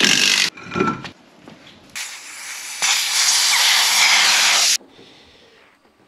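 Cordless impact wrench hammering on wheel nuts, stopping about half a second in. A second long burst of loud rattling noise follows, building from about two seconds in and cutting off abruptly near five seconds.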